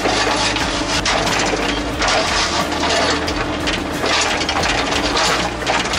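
Hyundai Robex 140W wheeled excavator at work, heard from inside the cab: the diesel engine and hydraulics run steadily while the bucket digs into soil and rock, with scattered knocks and clatter.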